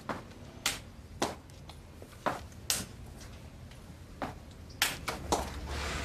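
Forearm crutches and shoes tapping on a wooden floor as someone walks slowly on crutches: a slow, uneven series of sharp clicks, about two a second, with a brief rustling hiss near the end.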